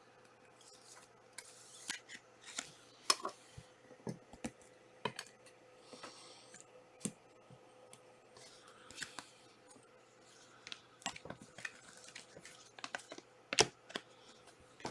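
Trading cards and pack wrappers being handled on a table: scattered sharp clicks and short rustles and scrapes, irregularly spaced, two of them louder than the rest.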